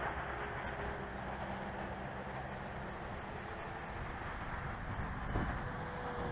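Faint high whine of a small electric RC flying wing's 2200 kV brushless motor and 7x4 prop in flight, its pitch drifting slowly down, over a steady hiss.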